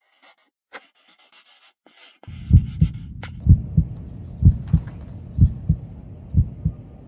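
Faint pencil scratching on paper, then after about two seconds a heartbeat sound effect starts: low double thumps about once a second.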